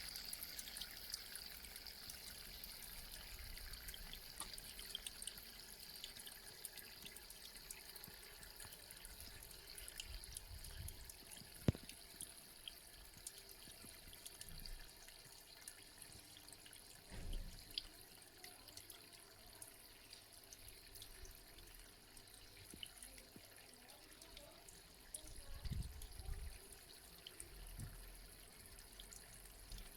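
Small brick-and-cement garden water fountain running, water trickling and dripping faintly and steadily. A sharp click comes near the middle, and there are a couple of brief low rumbles later.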